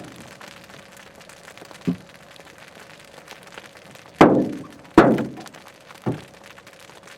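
Large hailstones, baseball-sized, striking a vehicle in four separate heavy thunks, each ringing briefly; the two loudest come about four and five seconds in.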